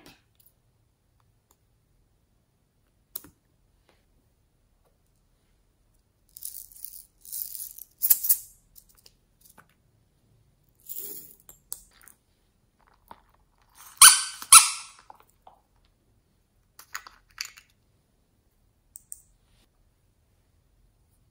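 Small plastic beads rattling in a jar and being shaken out onto slime in short bursts, loudest about two-thirds of the way through, with a few small clicks between.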